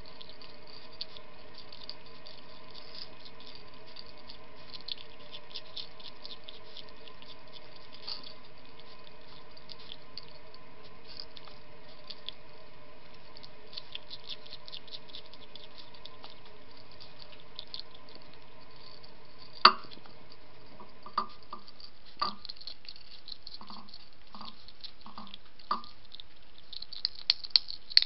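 A hedgehog eating dry food pellets from a plate: quick, small crunching clicks of chewing, with a few louder sharp clicks from about two-thirds of the way in and a cluster near the end, over a steady low hum.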